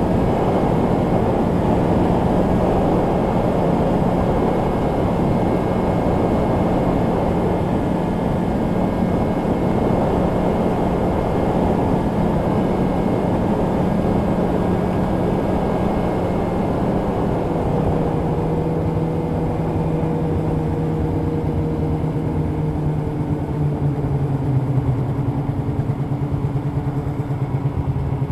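Polaris two-stroke snowmobile running at steady trail speed, its engine tone and track noise loud and even, then the engine pitch falls gradually over the last ten seconds or so as the sled eases off and slows.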